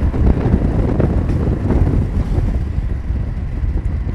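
Wind buffeting the phone's microphone from a moving car, a loud, ragged low rumble, with the car's road noise underneath.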